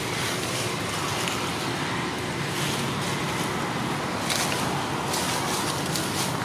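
Steady rushing background noise, with a few faint scratchy ticks in the second half.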